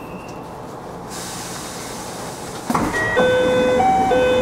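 A steady hiss starts about a second in, then near the end a train's electronic door-closing chime sounds, a ding-dong of a few held tones stepping between pitches.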